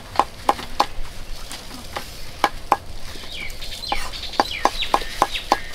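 Cleaver chopping red chilies on a thick wooden chopping block: a steady run of sharp knocks about three a second, with a short pause a little after a second and a half in.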